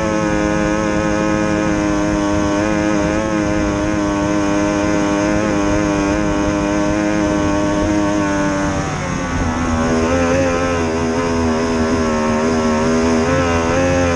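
Racing outboard motor of an SST 60 tunnel boat running hard at a steady high pitch. About nine seconds in, the engine note dips briefly, then carries on at a lower pitch that wavers up and down.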